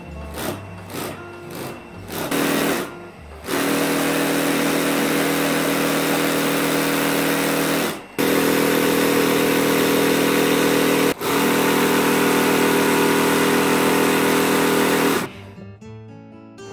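Industrial sewing machine running in long steady stretches as a white braid is stitched round and round into a hat crown, after a few short starts and clicks in the first seconds. It stops for a moment about eight seconds in and again about eleven seconds in, and stops about fifteen seconds in.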